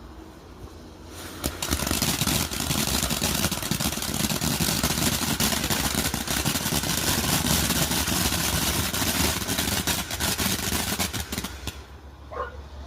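Badaboom 'Call Me' 200 g firework fountain burning: a dense hiss packed with sharp crackles, starting about a second and a half in and dying away near the end.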